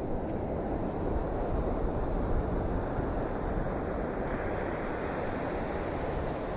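Hurricane wind buffering the microphone together with the rush of surf, a steady low rumbling noise with no letup.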